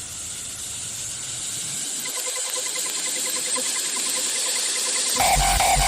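Hardstyle build-up: a hissing noise sweep that grows steadily louder with the bass cut out, joined about two seconds in by a fast, evenly pulsing tone. About five seconds in the drop hits, with a heavy kick drum and lead synth.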